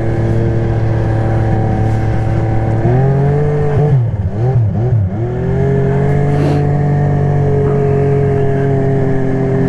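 Snowmobile engine running steadily under way, then revving up and down several times about three to five seconds in before settling at a steady, slightly higher speed.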